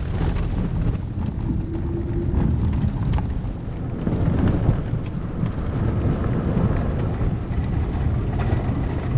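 Toyota RAV4 driving over a gravel and dirt road, heard from inside the cabin: a steady rumble of tyres and engine with scattered small ticks and rattles.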